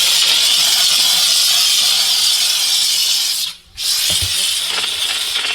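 Bissell SteamShot handheld steam cleaner jetting a steady, loud hiss of steam. It cuts out for a moment about three and a half seconds in, then starts again.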